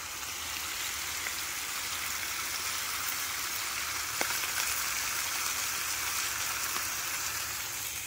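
Chicken and other meat sizzling in griddle pans on a camp stove: a steady frying hiss, with one small tick about four seconds in.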